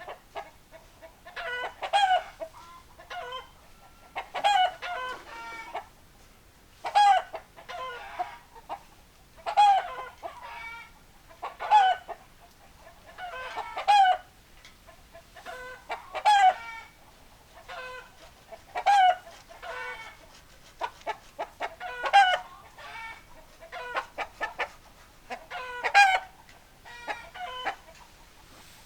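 Chickens clucking and calling, a short burst of calls about every two to two and a half seconds.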